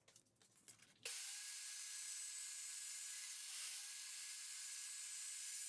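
Portable bandsaw running as it cuts a red G10 handle-liner sheet: a faint, steady hiss with a thin high whine, starting about a second in.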